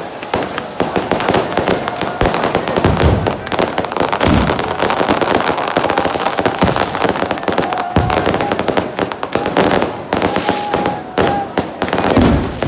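Fireworks crackling in a dense, rapid stream of small pops, with a few deeper bangs mixed in.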